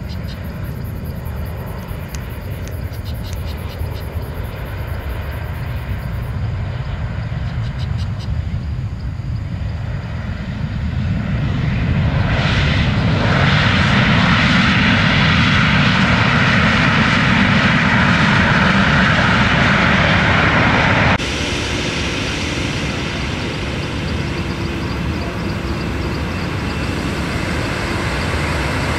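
Boeing 737-800's CFM56 jet engines landing: a steady distant rumble on approach, then a loud rushing roar from about twelve seconds in as the airliner rolls out on the runway, typical of reverse thrust. The roar drops off abruptly a little past the two-thirds mark, leaving a lower steady engine rumble.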